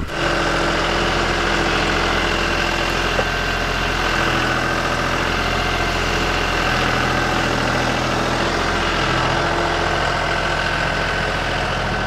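John Deere tractor's diesel engine running steadily while its front loader lifts a round hay bale on a hay spike, with a steady high whine over the engine.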